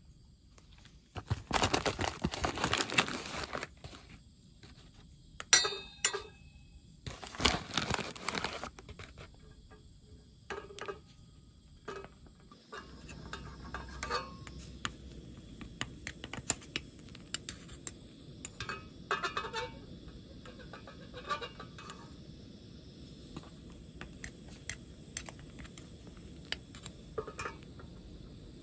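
Hand work on a shoe at a cobbler's bench: two stretches of scraping or brushing early on, then scattered clicks, taps and short metallic clinks of tools being handled. A low steady hum comes in about halfway.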